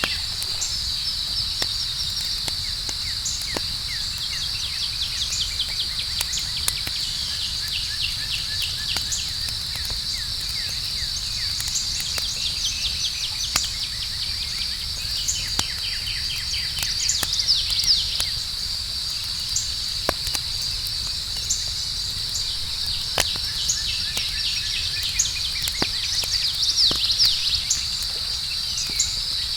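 Campfire crackling with frequent sharp pops over a steady high-pitched chorus of night insects such as crickets. Runs of quick chirps come and go, swelling twice into louder flurries, about halfway through and near the end.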